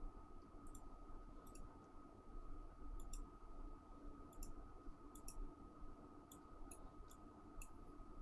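Faint computer mouse clicks, about a dozen at irregular intervals, over a thin steady background tone.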